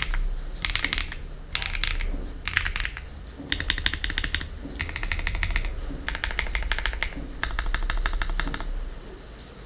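Typing sound test on a Choice65 gasket-mount keyboard with a polycarbonate plate and Outva Yang linear switches: short bursts of keystrokes at first, then longer runs of fast typing broken by brief pauses.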